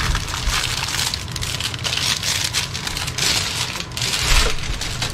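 Clear plastic wrap crinkling continuously as it is handled and pulled open around a rolled canvas, with a dull bump about four seconds in.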